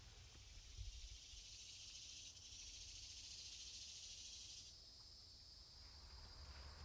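Faint, steady, high-pitched drone of insects in the woods, over a low rumble. The drone thins and narrows about five seconds in, then fades.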